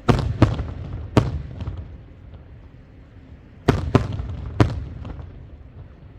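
Aerial fireworks shells bursting: three sharp bangs within about a second, a pause, then three more, each trailing off in a rolling echo.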